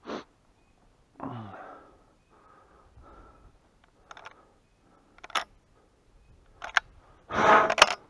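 Scattered knocks and rustles of movement and camera handling, with a short low sigh about a second in and a louder scuffing rustle near the end.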